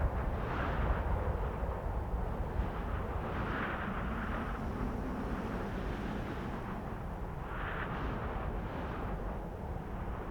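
Cold winter wind blowing steadily with a deep rumble, gusting and rushing in swells about half a second in, around three and a half seconds in and near eight seconds in.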